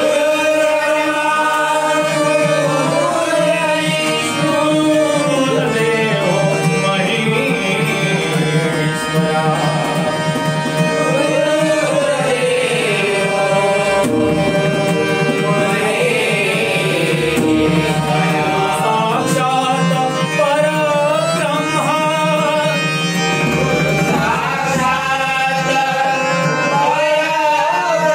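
Malvani bhajan: a singer's melodic voice, gliding and ornamented, over steady held harmonium-like tones with tabla keeping the beat.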